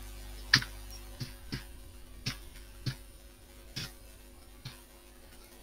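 Computer keyboard keys pressed one at a time in slow, uneven hunt-and-peck typing, about seven separate key clicks.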